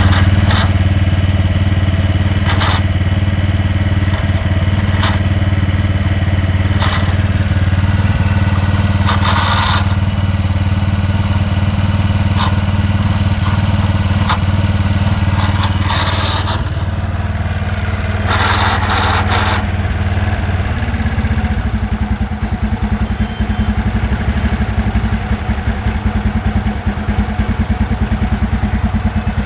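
TVS Ntorq scooter engine running, with scattered sharp clicks and several short rattling bursts over its steady hum: the noise put down to a faulty one-way clutch. About two-thirds through, the running note drops into a lower, evenly pulsing idle.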